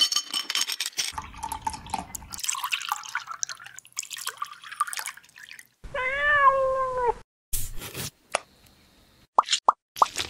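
Ice cubes clattering and clinking into a glass, followed about six seconds in by a single cat meow lasting about a second, its pitch rising slightly and then falling. A few short knocks and clicks follow near the end.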